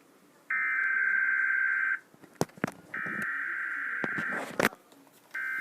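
Emergency Alert System SAME header: digital data tones sounding as buzzy bursts, the first two about a second and a half each and a second apart, the third beginning near the end. A few sharp clicks fall in the gaps between bursts.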